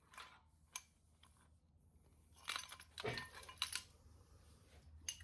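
Faint metal-on-metal clinks and rattles of hand tools being handled, a few light clicks at first and then a denser cluster of clinking in the middle.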